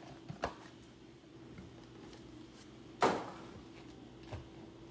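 Trading cards and packs handled on a table: a few light clicks, then one sharper knock about three seconds in, over a faint steady hum.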